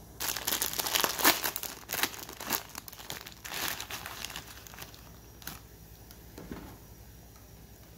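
Plastic Indomie Mi Goreng wrapper crinkling and rustling as the dry noodle block is handled and pulled out of it. The crinkling is densest in the first few seconds and thins out after about five seconds.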